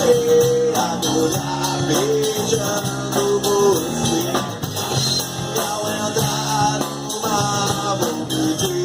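Background music: a rock song with guitar and singing.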